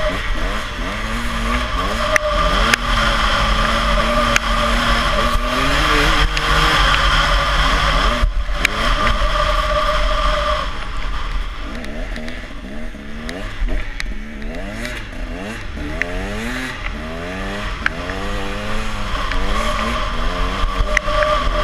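Snowmobile engine running under way, its pitch rising and falling again and again with the throttle. A steady high whine runs over it for the first half and returns near the end.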